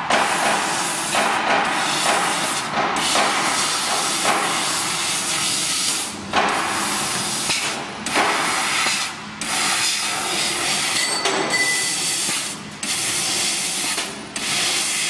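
500W fiber laser cutting machine cutting 1 mm stainless steel sheet: a steady hiss from the cutting head, broken several times by short gaps where the cut stops.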